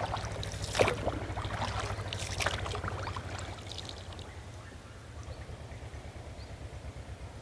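Small plastic boat moving across calm water: a few splashes and knocks in the first three seconds over a low steady hum.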